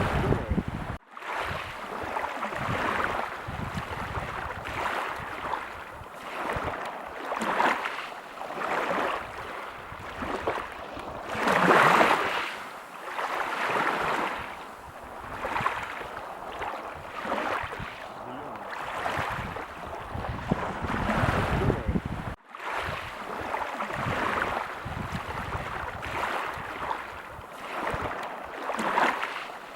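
Ocean waves breaking on a beach, the surf swelling and washing back in repeated surges every few seconds, loudest about twelve seconds in. The sound cuts out for a split second twice, near the start and about two-thirds of the way through.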